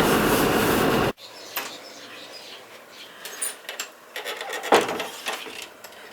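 Old Land Rover's engine and road noise running loudly, cutting off suddenly about a second in. After that it is quiet, with a few soft clicks and knocks.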